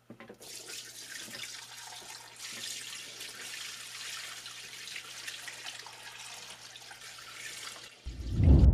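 Degreaser pouring from a plastic jug and splashing into a plastic tub over metal lathe parts, a steady splashing stream. About eight seconds in the pour stops and a loud, deep boom takes over.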